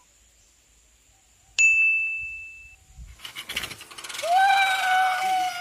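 A single bell-like ding about one and a half seconds in, ringing out for about a second. Then a rushing noise builds, and a loud whine sets in that slowly falls in pitch: a pulley carriage running down a wire cable.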